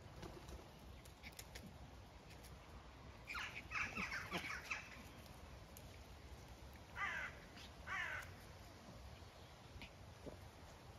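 Crows cawing: a quick run of several harsh caws about three to five seconds in, then two more single caws around seven and eight seconds.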